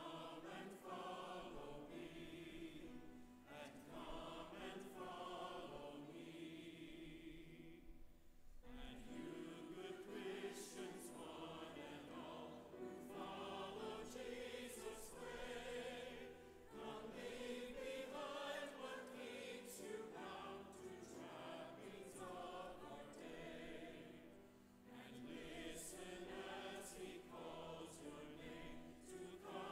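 Church congregation singing a hymn over sustained instrumental accompaniment, with short breaks between sung phrases.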